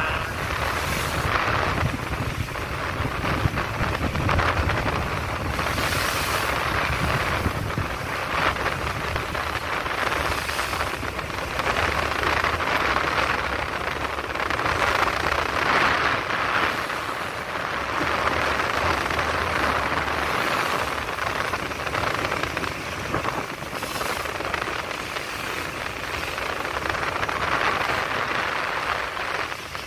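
Strong wind rushing over the microphone and rough sea churning, swelling and easing every few seconds, over a steady low rumble that fades about two thirds of the way through.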